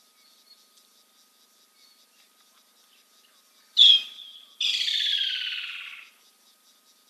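An animal call: a sharp high note about four seconds in, then a long call sliding steadily downward in pitch, over a faint fast ticking chorus of insects.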